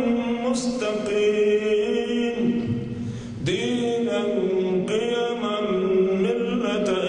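An elderly imam's voice reciting the Quran in a slow, melodic chant while leading prayer, holding long, gliding notes. There is a short breath pause about three seconds in before the recitation resumes.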